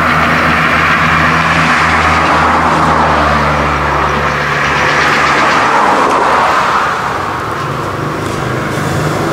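A motor vehicle's engine running close by, a steady loud noise with a low engine hum under it. The hum fades about four and a half seconds in, and the whole sound eases off near the end.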